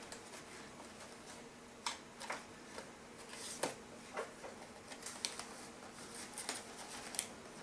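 Scattered clicks, taps and crinkles of a toy's retail packaging being handled and opened by hand, over a faint steady hum.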